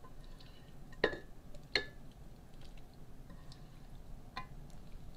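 Kitchen tongs clicking and tapping against a nonstick skillet as sautéed vegetables are lifted out and dropped wetly into a lasagna pan. The sharpest clicks come about a second in, just under two seconds in, and again near four and a half seconds, with fainter ticks between.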